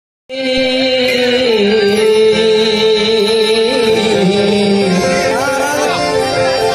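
Harmonium playing a melody of held, sustained notes that step from one pitch to the next, starting abruptly just after the beginning: the instrumental opening of a Gujarati devotional song (bhajan).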